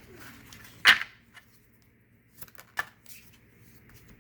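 Tarot cards being handled and drawn: one sharp card rustle about a second in, then a few light clicks and taps of cards.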